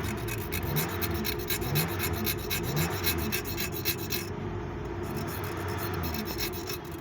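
Quick, rhythmic hand scraping or filing strokes, several a second, that stop about four seconds in, over a steady low hum.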